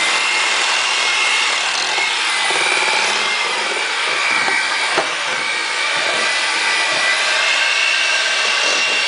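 Electric hand mixer running steadily, its beaters whipping eggs in a mixing bowl, with a steady whine over the motor noise and one sharp click about five seconds in.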